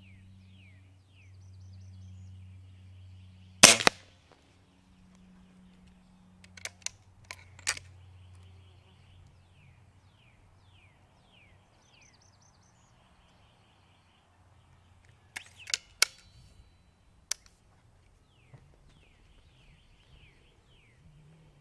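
A Weihrauch HW97K .177 spring-piston air rifle fires once, a sharp crack about four seconds in. It is followed by two clusters of metallic clicks and clacks as the underlever is cocked and the rifle reloaded. Birds chirp in short falling notes throughout.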